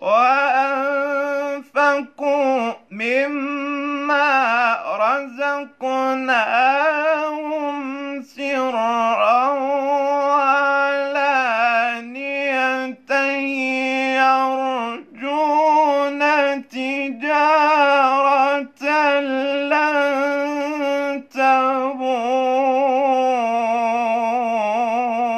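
A young man's solo voice chanting Quran recitation in a melodic, ornamented style: long held notes that waver and glide, broken by short breaths, falling in pitch at the close.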